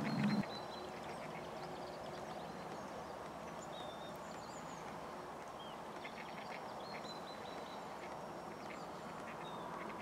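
Waterfowl calling in several short runs of quick quacking notes over a steady background hiss, with a few thin high calls of small birds.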